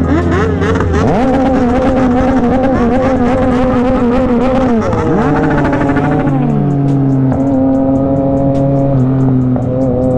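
Motorcycle engine revving hard: the pitch jumps up about a second in, holds at high revs, drops and climbs again about five seconds in, then runs steadily. Music with a steady beat plays underneath.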